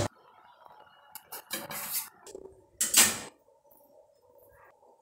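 Pressure cooker pot and steel utensils knocking on a glass-top gas stove as the pot is shifted between burners and set down: several short sharp clanks, the loudest about three seconds in.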